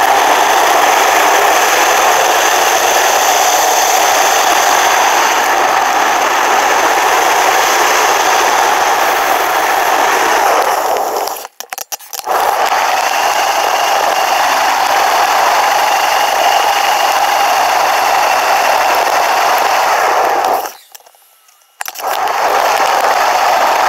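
Steady rushing noise of riding, wind and road vibration picked up by a bicycle-mounted action camera in its housing, cut off briefly twice, about halfway through and near the end.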